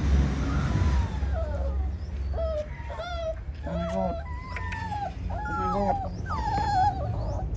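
Young puppy crying in distress: a string of short, high-pitched whimpers and whines, each falling or arching in pitch, one after another from about a second in. A low rumble fills the first second.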